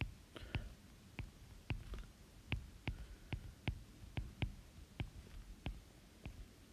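Stylus tip tapping on a tablet's glass screen during handwriting: faint, short, irregular clicks, about three a second.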